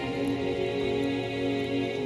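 Background music: soft, calm new-age-style instrumental with long sustained chords.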